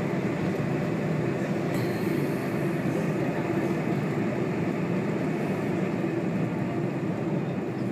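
Steady rumble and hiss inside the cabin of a Boeing 747 airliner taxiing after landing, heard from a window seat over the wing.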